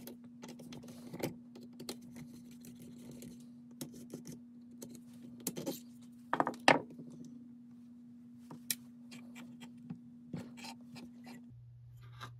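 Screwdriver and small metal and plastic parts clicking and clinking as a string trimmer's carburetor is unscrewed and pulled off the engine, with a few louder knocks about six and a half seconds in. A steady low hum runs underneath.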